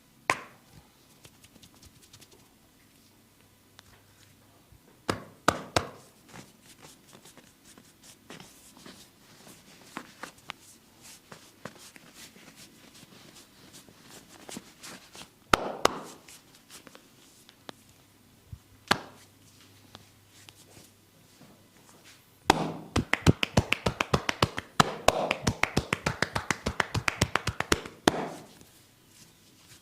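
Massage hands striking and snapping against skin: scattered single slaps and cracks, then a rapid run of tapping strikes lasting about six seconds near the end.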